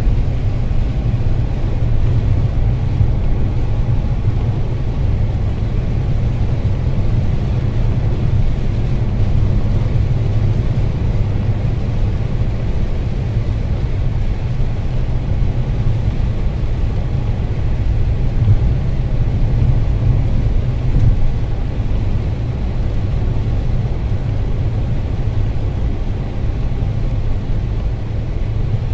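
Steady low rumble of a car driving at highway speed on a wet road, heard from inside the cabin.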